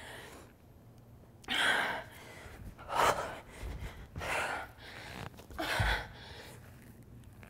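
A woman breathing hard in short, sharp gasping exhales, about four or five puffs spread out, from the exertion of doing burpees. Two dull low thumps are heard, one past the middle and one near the end.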